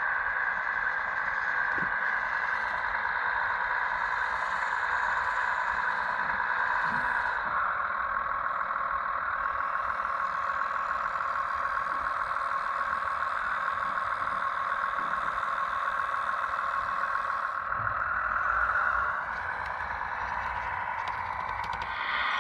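Electric hydraulic pump of a 1/15-scale RC construction machine running steadily with a high whine, its pitch shifting slightly a few seconds in and again near the end as the load changes, with faint rattles and scrapes.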